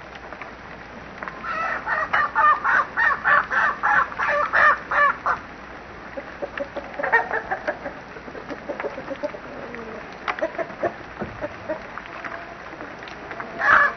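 Chickens clucking: a quick run of about a dozen loud clucks at roughly three a second, then scattered softer clucks, and one loud call just before the end.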